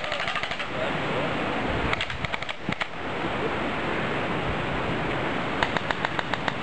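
Airsoft electric guns (AEGs) firing three short full-auto bursts of rapid clicks, about ten a second: at the start, around two seconds in, and near the end. Steady wind noise on the microphone underneath.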